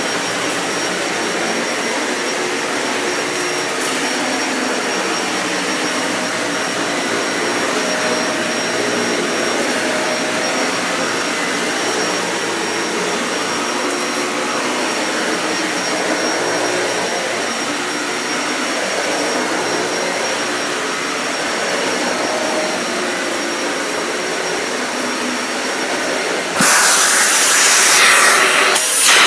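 Dyson Ball Animal 2 upright vacuum cleaner running steadily while vacuuming, a constant motor hum with a thin high whine. Near the end a sudden, much louder rushing hiss takes over.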